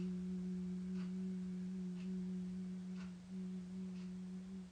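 A woman humming one steady low note with her lips closed, the long out-breath of the bumblebee breath (bhramari), which stops abruptly near the end.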